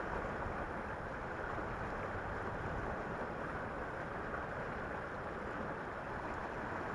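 Steady wind rumble on the microphone, mixed with the even rush of river water.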